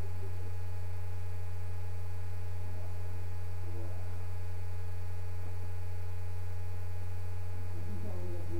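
Loud, steady low electrical hum, even in level throughout, with a few faint higher steady tones above it.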